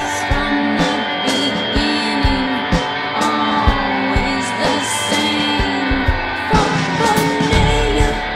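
Rock music: guitars over drums keeping a steady beat.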